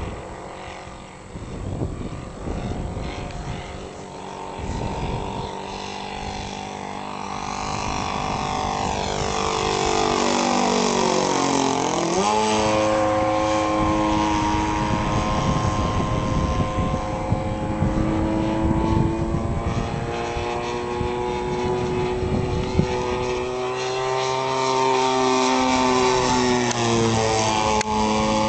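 Propeller engine of a light tow plane flying overhead: a steady drone that grows louder over the first ten seconds, its pitch sliding sharply down as it passes, then holding steady before dipping again near the end.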